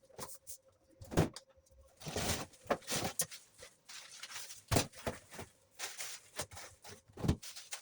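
Irregular knocks, bumps and clatters, with a stretch of rustling a couple of seconds in: household items and bags being handled and set down.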